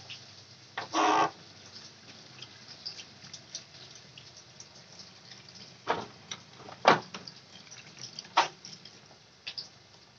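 A pot of water at a rolling boil on a gas stove, bubbling steadily. A short pitched call sounds about a second in, and a few sharp clicks come about six, seven and eight seconds in.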